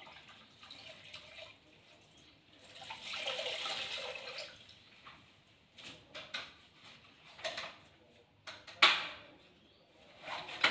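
Detergent water sloshing and splashing in a plastic bucket as a cloth mop pad is dipped into it by hand: a longer swish about three seconds in, then several short splashes and knocks in the second half.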